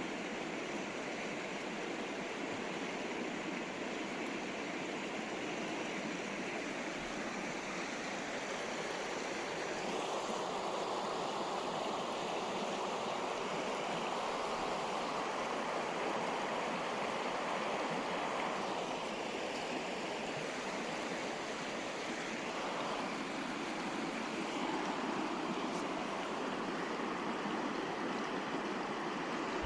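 A river flowing: steady rushing water with slow swells in level.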